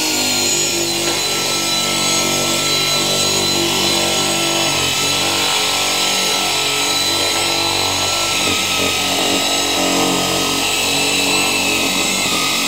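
A power cutting tool runs steadily with a high whine, cutting through the car body's sheet metal during rust repair. It cuts easily, "like butter".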